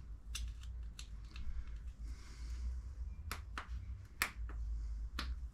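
Sharp, irregular metallic clicks and taps of a hand tool working on the motorcycle's engine: about six in all, as a stubborn part is worked loose.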